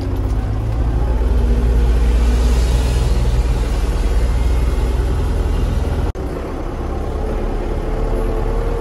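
Farm tractor's diesel engine running steadily as it drives, carrying a bale on its front loader, heard from inside the cab. The sound drops out for a split second about six seconds in.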